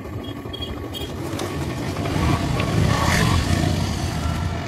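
A motor vehicle's engine going past: a low rumble that swells to its loudest about halfway through and then fades. A few light metal clinks come in the first second.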